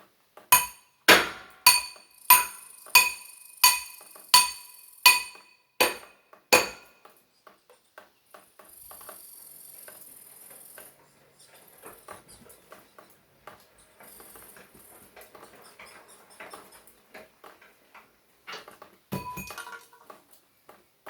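A piece of metal struck repeatedly, about ten sharp ringing blows a little over half a second apart, each ringing at the same pitches. Fainter knocks and handling sounds follow, then one more ringing blow near the end.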